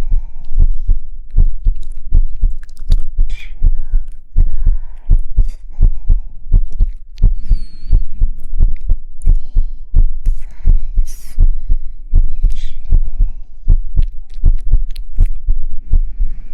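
A steady rhythm of soft, deep thumps, about two to three a second and heartbeat-like, with faint rustling and a few light higher sounds over it.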